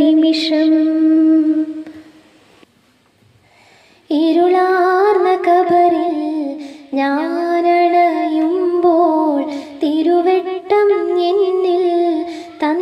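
A woman singing a Malayalam madh (devotional song for the Prophet's birthday) without accompaniment, in long held, wavering notes. She breaks off about two seconds in and starts again about two seconds later.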